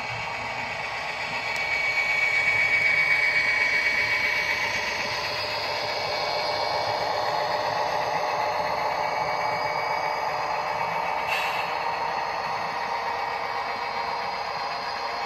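Model train running past on the track: the rolling clatter of the freight cars' wheels, then the whine of the model diesel locomotives' electric motors and gears as they go by. A high steady whine swells a couple of seconds in and then eases.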